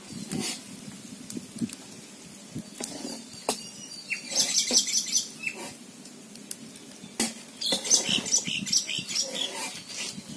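Birds chirping in two quick bursts, about four and eight seconds in. Under them are a few sharp knocks and the quiet pour of cooking oil into an iron kadai.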